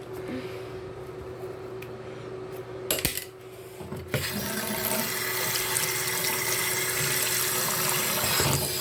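A bathroom sink tap is turned on about four seconds in and water runs steadily into the basin. A brief clatter comes just before it.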